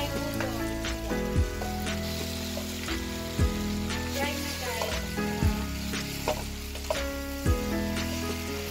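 Udon noodles and leafy greens sizzling as they are stir-fried in a pan, with a spatula stirring them. Background music runs under it, with a low thump about every two seconds.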